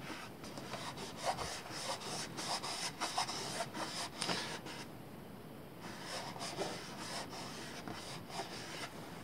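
A hand rubbing a sticker down onto an ATV's plastic body panel: a run of short, faint scratchy rubs.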